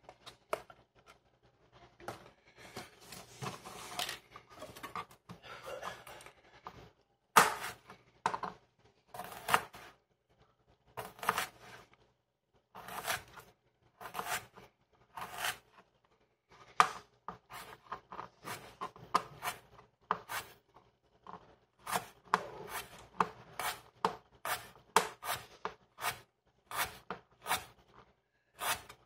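Irregular series of short cutting and scraping strokes from hand preparation of the ingredients, some sharp and some drawn out, with brief pauses.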